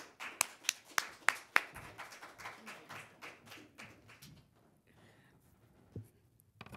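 A small audience applauding, with a few distinct claps about three a second that thin out and stop after about four seconds. A single thump comes about six seconds in.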